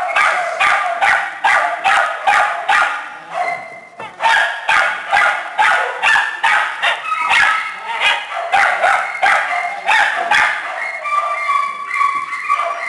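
A pack of small dogs and puppies barking and yipping over one another, about three or four barks a second, as they jump up at a person for attention. The barking breaks off briefly about three and a half seconds in, and a drawn-out whine comes near the end.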